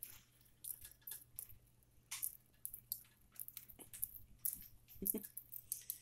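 Budgies pecking at and cracking seed and pellets in a halved bell pepper: faint, irregular little clicks and crunches.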